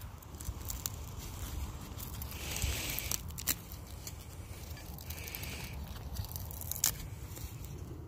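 Dry milkweed seed pod crackling and rustling as it is handled close to the microphone, with a few sharp clicks, the loudest near the end. A low wind rumble sits underneath.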